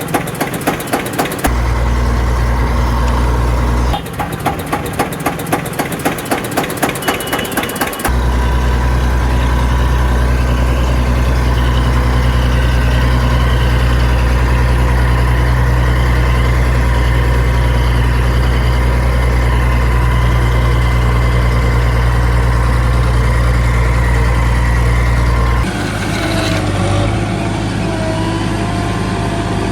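Heavy diesel machinery engine running: stretches of rapid, even clatter alternate with a steady deep drone, and the engine sound changes about 26 seconds in.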